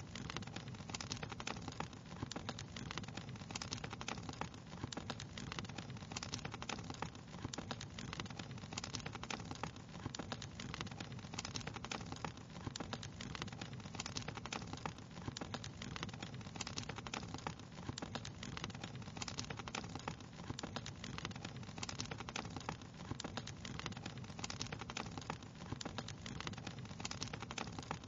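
Wood fire crackling steadily, with dense, irregular pops and snaps over a low rumble.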